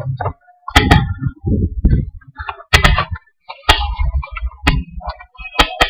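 Footsteps, with arrows clicking and rattling loosely in a shoulder quiver as the wearer walks. There is a dull thump about once a second and irregular sharp clicks between.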